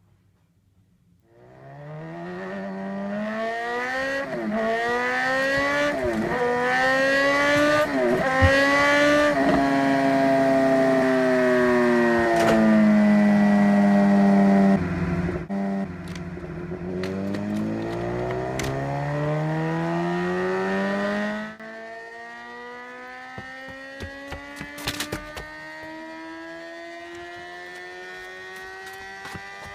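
Can-Am four-stroke engine revving and accelerating: its pitch climbs with several quick dips, holds high for a few seconds, falls and climbs again, then becomes much quieter about three quarters of the way through, leaving a softer tone that slowly rises.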